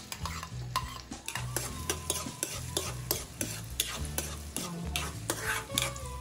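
Metal ladle scraping and knocking against a wok, about twice a second, as diced onion is stirred, with a light sizzle of the onion frying in oil.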